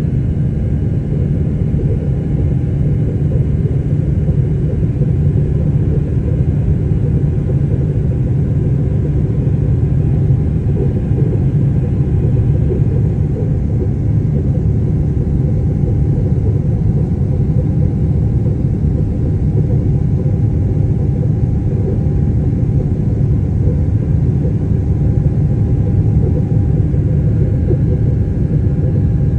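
Jet airliner cabin noise: the engines and the air rushing past the fuselage make a steady low rumble, heard from a window seat as the plane climbs out after takeoff.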